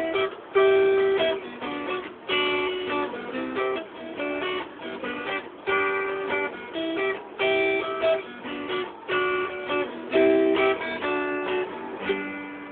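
Guitar strumming chords, the instrumental close of a song with no singing. The last chord comes near the end and dies away.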